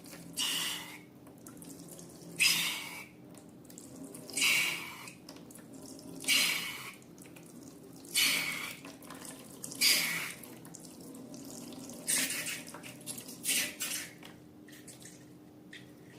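Wet slime squelching as it is squeezed and stretched, in short bursts about every two seconds.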